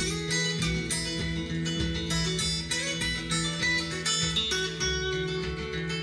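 Guitar music with plucked notes over a sustained bass, played back through Edifier R2000DB active bookshelf speakers (5-inch woofer, 25 mm tweeter) as a sound test, picked up by a stereo microphone in the room.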